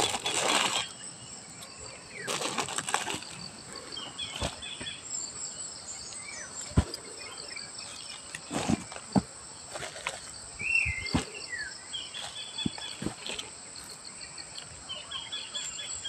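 Several short rustles and soft knocks from close handling, the loudest at the very start and about two to three seconds in, over a steady chirring of insects with scattered bird chirps.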